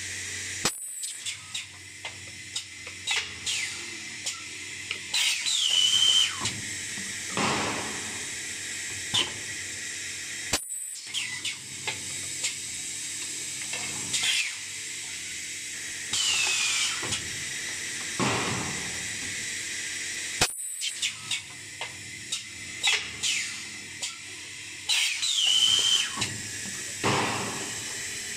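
A two-mould automatic extrusion blow moulding machine cycling about every ten seconds. Its pneumatic cylinders click and clunk as the moulds move, compressed air blows and exhausts in sharp hisses, and there is a short squeal each cycle, all over a steady high machine whine.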